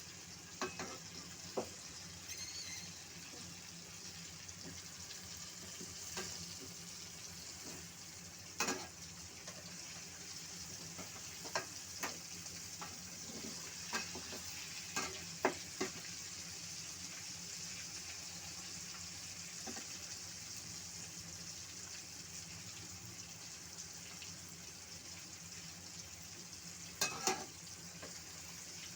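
Food frying in hot oil in a pan: a steady sizzle, broken by a dozen or so sharp pops and knocks, with a pair of louder ones near the end.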